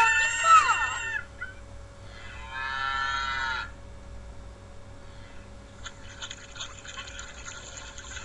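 Farm animal calls: a short call falling in pitch at the start, then a longer, steadier call about two and a half seconds in, followed by a fainter, noisier stretch.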